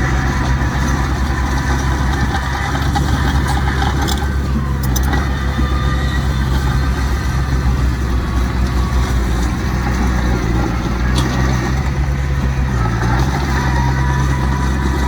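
Heavy diesel engine of earthmoving machinery running steadily, with a few faint clicks about four to five seconds in and again near eleven seconds.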